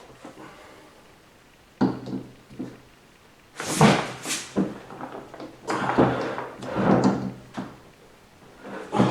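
Hand tools knocking and scraping on a Ford 5R55S transmission as a fitted part is levered off: a sharp knock about two seconds in, then a run of clunks and rasping scrapes, and another knock near the end.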